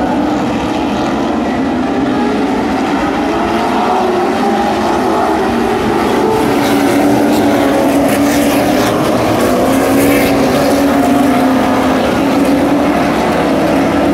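Engines of several street stock race cars running together at racing speed, their pitches rising and falling as the cars go round the track.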